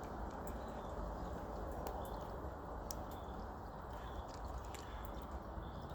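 Small plastic Lego pieces being handled and fitted, giving a few faint scattered clicks over a steady background hiss.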